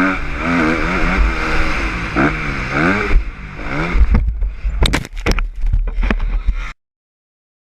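Motocross bike engine revving up and down, followed by a run of sharp knocks and thumps. The sound cuts off abruptly near the end.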